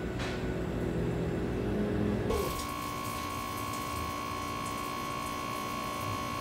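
A low hum, then about two seconds in an abrupt change to a Tormach 1100MX CNC mill spindle running with a steady whine, with a hiss of flood coolant spraying over a 6061 aluminium part as the tool cuts its bolt holes.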